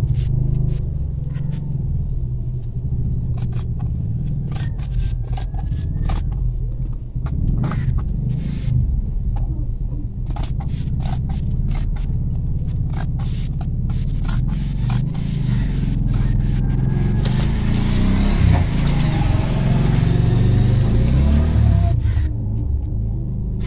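Large steel tailor's shears snipping through cotton blouse fabric on a plastic sack, a long run of sharp blade clicks with rasping scrapes, loudest about 17 to 22 seconds in, over a steady low rumble.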